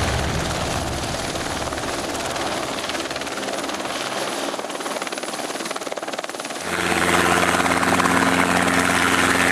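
Turbine helicopter, a Eurocopter AS350 type, hovering and settling to land, an even rotor and turbine noise. About two-thirds of the way in it cuts abruptly to a louder small helicopter running with a steady droning engine note under its rotor.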